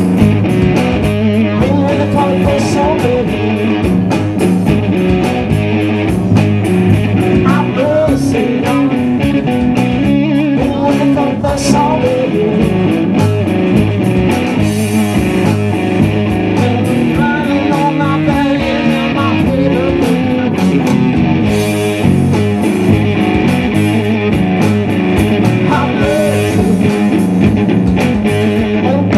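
Live rock band playing: electric guitar over drums and bass, with bending guitar notes and a steady drum beat.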